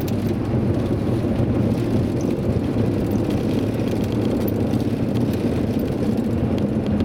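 Steady low rumble of an aircraft rolling out along the runway after landing, heard from inside the cockpit: engine noise and the roll of the wheels on the runway.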